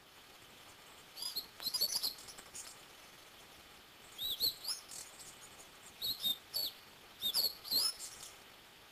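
Short, high-pitched bird calls in four clusters of quick rising-and-falling notes, a couple of seconds apart, over a faint hiss.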